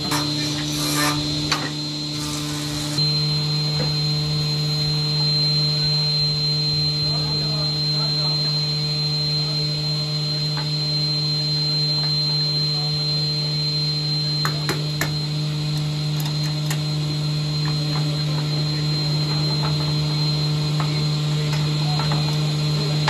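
A steady low electrical hum with a thin, even high whine, as from a running electric motor, with a few light taps past the middle.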